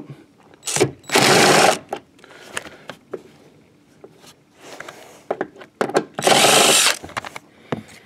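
DeWalt 20V cordless impact driver with a 14 mm socket, run in two short bursts, about a second in and again around six seconds in, hammering loose and backing out a seat belt anchor bolt. Small clicks and handling knocks come between the bursts.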